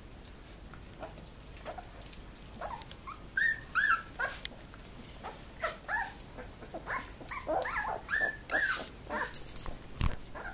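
Two-week-old Labrador retriever puppies squeaking and yelping in short high calls as they wrestle and mouth each other. The calls are sparse at first and come thick and fast from about three seconds in. One sharp knock sounds near the end.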